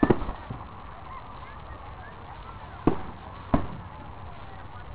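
Fireworks bursting: a quick cluster of sharp bangs at the start, then two more single bangs a little past halfway, just over half a second apart, each with a short echoing tail.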